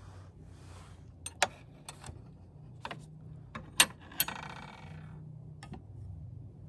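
Stainless steel chopsticks and dishes clinking on a tray table: a string of sharp taps and knocks, the loudest clink about four seconds in ringing on briefly.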